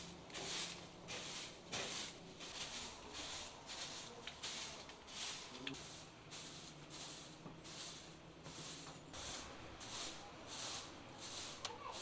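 Short-handled straw broom sweeping patterned stone floor tiles, brisk swishing strokes at about two a second.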